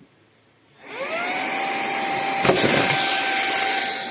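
Small battery-powered handheld vacuum cleaner switched on about a second in, its motor spinning up to a steady high-pitched whine. A brief knock partway through.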